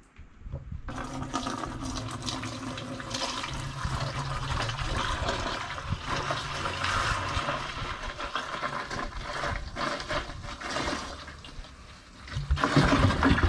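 Juice poured in a steady stream from a plastic jug into a large, nearly empty plastic jar, splashing as it fills; louder near the end.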